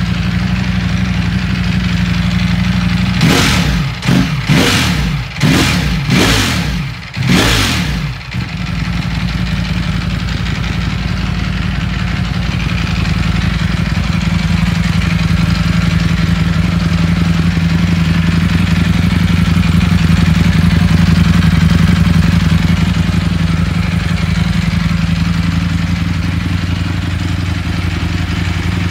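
2018 Ducati Panigale V4's V4 engine idling through its stock exhaust. A few seconds in it is blipped five times in quick succession, each rev rising and falling back, then it settles into a steady idle.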